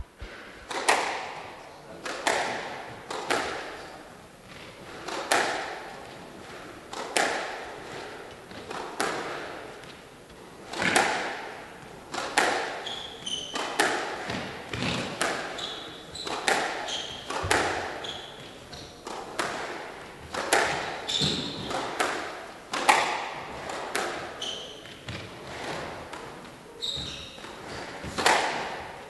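Squash ball being struck back and forth in a long rally, with a sharp hit about once a second ringing in the glass-walled court. Short high squeaks of court shoes on the wooden floor come through in the middle and again near the end.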